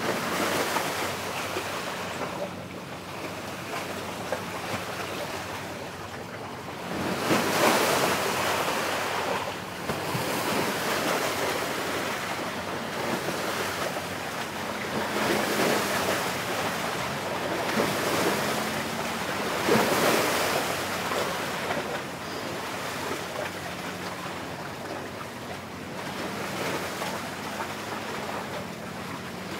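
Sea waves washing on the shore, surging and ebbing every few seconds, with wind buffeting the microphone.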